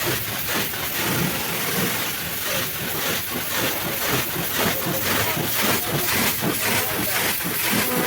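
High-pressure washer spraying: a steady, loud hiss and rush of the water jet, flickering irregularly as it plays over a surface.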